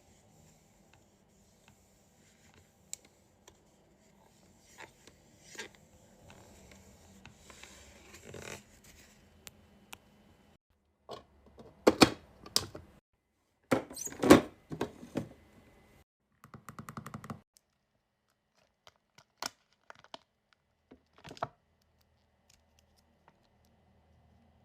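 Wax being handled close to the microphone. Soft scratching and scraping comes first, then loud knocks and clatters twice, a quick run of about a dozen light taps, and a few scattered clicks near the end.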